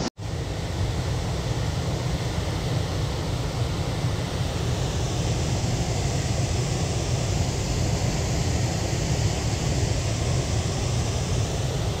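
Steady rushing of a rocky mountain stream's current and small waterfall, an even noise that runs on without a break after a brief cut in the sound at the very start.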